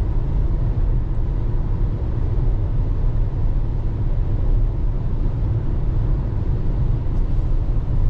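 Car cabin noise while driving: a steady low rumble of tyres, engine and wind on the road.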